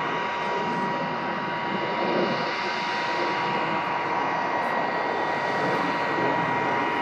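Saab 37 Viggen's Volvo RM8 turbofan jet engine passing overhead: a steady rushing jet noise with a thin high whine running through it.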